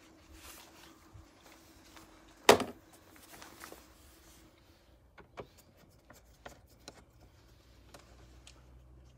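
A car's plastic air-filter housing being handled and refitted: scattered light clicks and taps, with one sharp knock about two and a half seconds in. Later come small ticks as a screwdriver works a housing screw.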